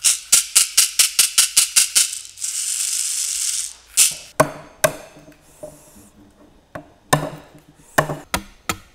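A newly woven wicker caxixi with seeds inside, shaken in quick rhythmic strokes about five a second and then in one continuous shake. From about four seconds in, a blade chops into a wooden stick in separate hollow knocks.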